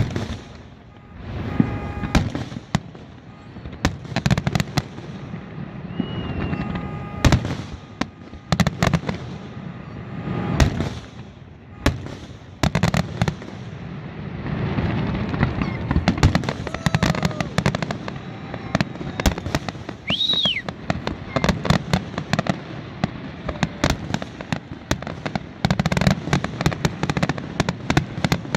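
Fireworks finale: aerial shells bursting in rapid, overlapping volleys, with sharp bangs over a continuous rumble and crackle. A brief falling whistle sounds about twenty seconds in.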